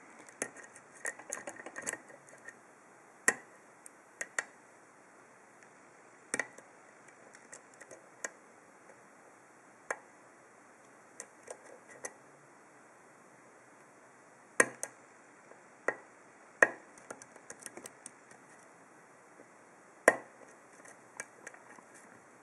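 Lock picking a brass pin-tumbler cylinder: scattered small metallic clicks at irregular intervals, a few louder than the rest, as a long hook pick lifts the pin stacks under tension and pins set.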